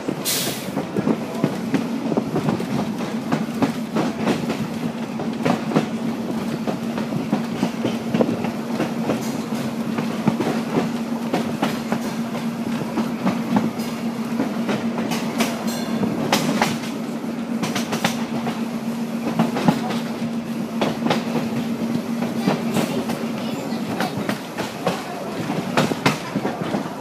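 Passenger railcar running at speed, heard from on board: wheels clicking and knocking over the rail joints over a steady rumble. A steady low hum runs under it and stops near the end.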